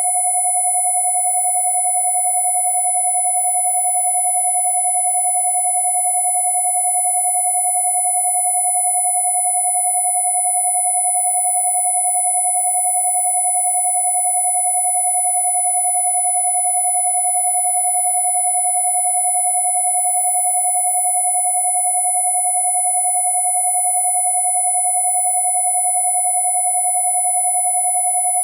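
Electronically generated pure tones held steady and unchanging: a strong 727 Hz tone together with a high 10,000 Hz tone, with faint overtones of the lower tone above it.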